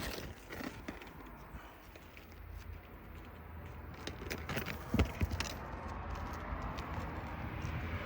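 Scattered clicks and light knocks, with a firmer knock about five seconds in, as roofing nails and asphalt shingles are handled during a shingle repair.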